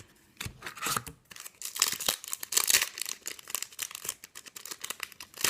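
A foil Yu-Gi-Oh booster pack wrapper being torn open and crinkled in the hands: a run of irregular crackling rips and rustles, busiest a couple of seconds in.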